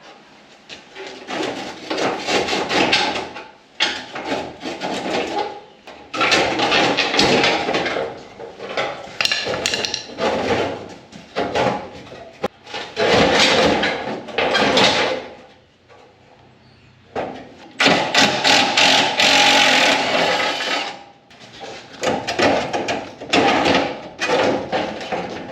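Hand tools working on metal on the car's front end: repeated spells of knocking, clanking and scraping lasting a second or two each, with short pauses between.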